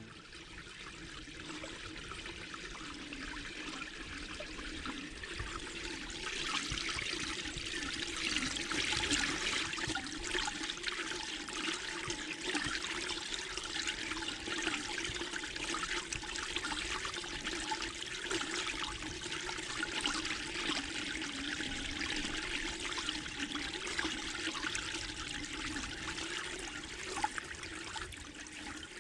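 Mountain valley stream flowing: a steady wash of running water that fades near the end.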